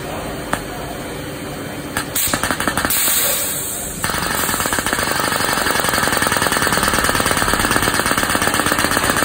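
SMC pneumatic pressure booster cycling, a rapid mechanical rattling chatter of its pistons and valve. It starts about two seconds in with a burst of air hiss, then gets louder and denser about four seconds in.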